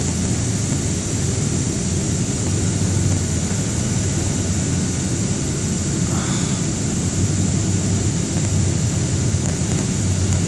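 Steady roar of an airliner's jet engines and rushing air, heard inside the passenger cabin during the descent to land.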